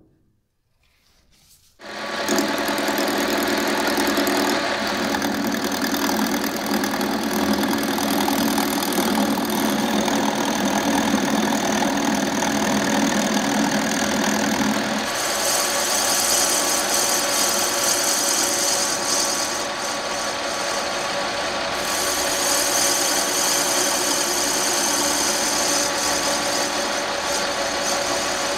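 Metal lathe turning a square kingwood blank with a carbide insert turning tool. The steady run of machine and cutting noise sets in abruptly about two seconds in, and a brighter high hiss joins about halfway through.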